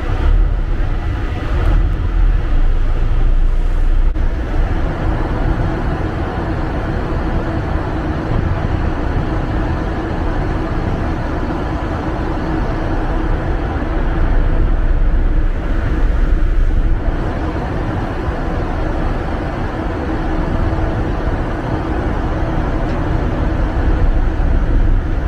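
Mermaid II ferry's engine running steadily underway, a loud even drone with a steady hum over a rushing low rumble.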